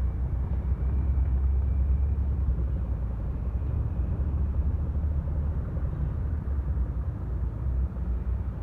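Steady low rumble of a vehicle engine running, with a faint thin high whine over it.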